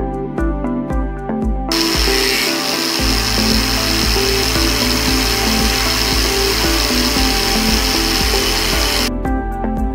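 Background music with a steady beat. About two seconds in, a machine tool cutting the threaded end of a steel truck axle spindle comes in over the music: a steady high-pitched whine with a hiss, which cuts off about a second before the end.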